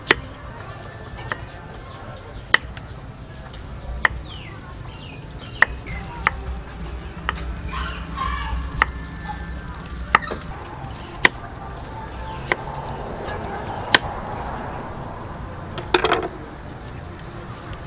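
Kitchen knife slicing red onions on a wooden chopping board: each cut ends in a sharp knock of the blade on the board, about one every second or so, with a quick run of several knocks near the end.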